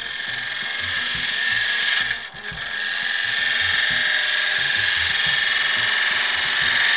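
Turning tool cutting the inside of a walnut vessel spinning on a wood lathe: a loud, steady hissing scrape with a high whine running through it, which breaks off briefly about two seconds in and then picks up again.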